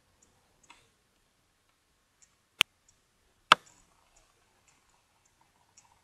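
Two sharp computer mouse clicks about a second apart, near the middle, with a few faint ticks around them.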